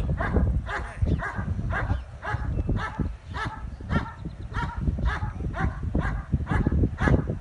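German Shepherd vocalising in short, rhythmic calls, about two or three a second, while holding a grip on a bite sleeve.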